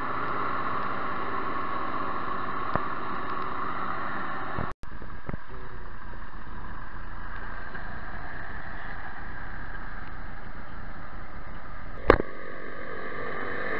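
Diesel engines of maize silage machinery running steadily: first a Claas forage harvester chopping maize and blowing it into a trailer, then, after a brief dropout about five seconds in, an Ursus tractor working on the silage pile. A short sharp knock stands out about twelve seconds in.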